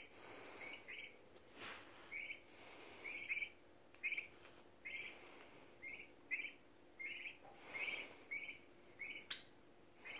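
Young Royal Palm turkey poults peeping: a steady series of short, high peeps, often in pairs.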